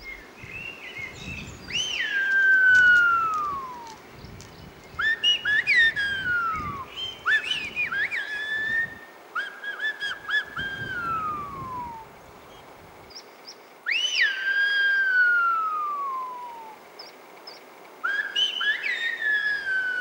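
Silbo Gomero, the whistled language of La Gomera: a man whistles, hand at his mouth, a series of about six phrases with pauses between them. Each phrase is a few short notes or a sharp upward sweep, most ending in a long falling glide.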